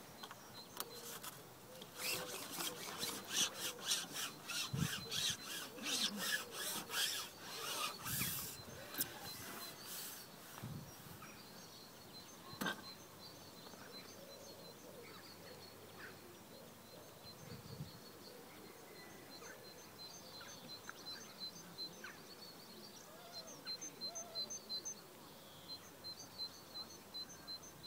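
Carbon fishing pole being shipped back out hand over hand, its sections rasping in quick, regular strokes for about the first ten seconds. After that the pole is held still, leaving faint, rapidly repeated high peeps in the background.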